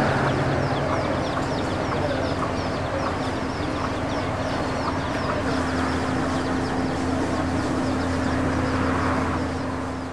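Free-roaming chickens calling, with many short high chirps throughout, over a steady low hum.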